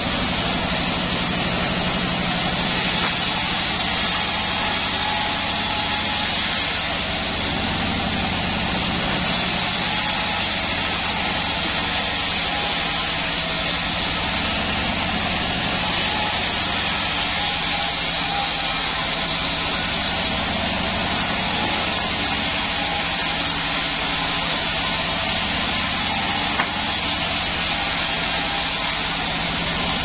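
Band sawmill (Bandsaw36 Pandan) running steadily, its machinery humming without pause.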